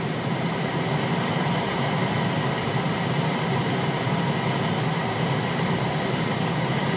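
Steady flight-deck noise of a CRJ700 airliner in flight on approach: an even rush of airflow and engine noise inside the cockpit, with no change through the whole stretch.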